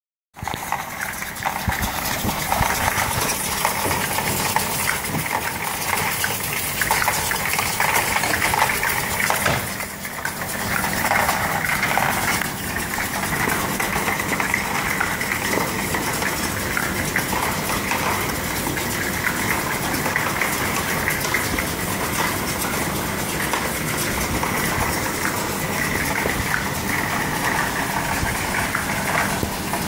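Plastic-container unscrambler running: a steady motor hum under a continuous clatter of light plastic containers rattling through the machine.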